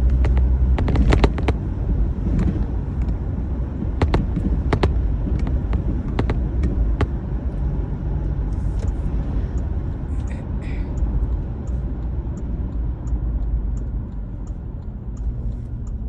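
Low, steady road rumble of a car heard from inside, with a few sharp clicks and knocks in the first half and faint, evenly spaced ticking later.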